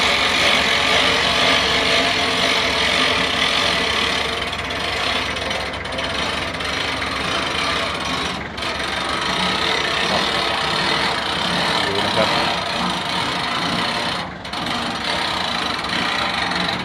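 Hand-cranked winch on a pickup-mounted crane being wound to hoist a bundle of three concrete posts, its ratchet clicking steadily as it takes the load.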